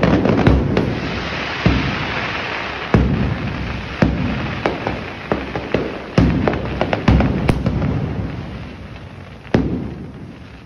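Aerial fireworks display: around ten sharp booms at uneven intervals, each with a short echoing tail, over a steady crackle, dying away near the end.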